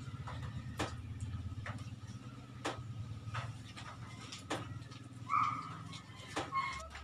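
Eating sounds: scattered sharp clicks and smacks of people eating with their hands and chewing, over a steady low hum. A brief high-pitched squeak comes about five seconds in, with shorter ones just before the end.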